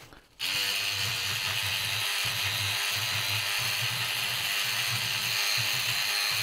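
Sonic Scrubber oscillating power brush running, starting abruptly about half a second in and whirring steadily as its bristles scrub through a paper towel on a circuit board, with a low hum that comes and goes irregularly.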